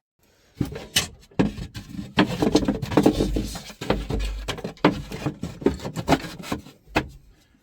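Wooden pieces being handled and test-fitted into a cabinet: a quick run of knocks, taps and scraping rubs, with a heavier low bump about three to four seconds in.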